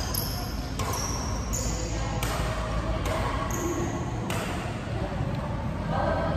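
Badminton rackets striking a shuttlecock in a rally, about five sharp hits roughly a second apart, with voices in the background.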